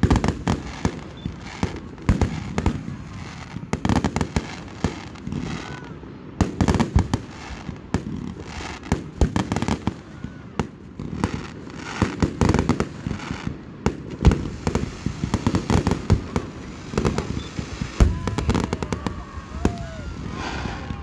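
Fireworks show: aerial shells bursting in a dense, irregular run of bangs and crackles.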